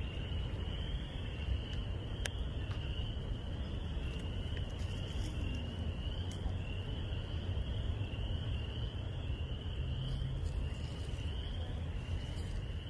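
A chorus of small frogs calling from a woodland pool: high, overlapping rising trills repeated steadily, over a steady low rumble.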